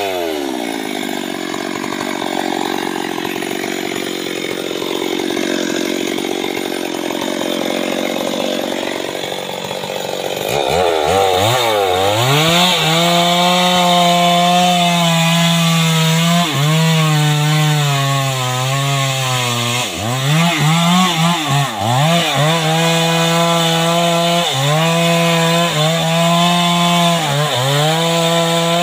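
Two-stroke chainsaw cutting into a tree trunk during felling. Its revs fall at the start and it runs slower for about ten seconds. It then revs up high and cuts, its pitch dipping again and again as the chain bogs down in the wood.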